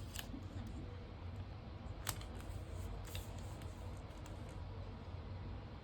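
Stickers and planner paper being handled: a few light clicks and crinkles, the sharpest about two seconds in, over a low steady hum.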